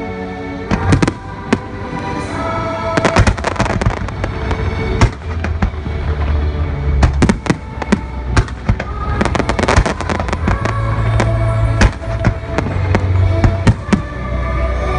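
Fireworks bursting in clusters of sharp bangs and booms, over the fireworks show's music.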